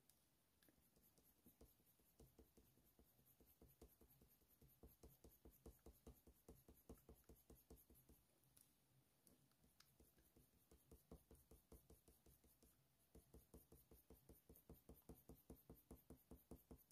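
Faint, rapid scratching of a Faber-Castell Polychromos colour pencil on hot-press watercolour paper, several short strokes a second, laying in fur texture. It pauses briefly a little past halfway, then picks up again more densely.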